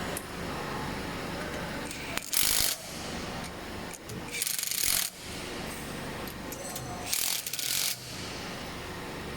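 Three short bursts of a power wrench, about two seconds apart, running down the bolts on the oil separator cover of a screw air compressor, with metal tool handling between them.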